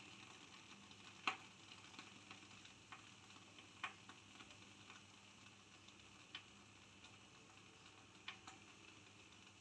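Aluminium pressure cooker heating on a gas burner: a faint sizzling hiss with a handful of irregular sharp ticks, the loudest about a second in and near four seconds, as vapour and water drops start to come off it while it builds up pressure.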